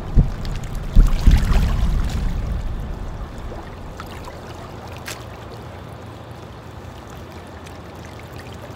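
A few low thumps in the first two seconds, then a steady low rush of water lapping against a rocky shoreline.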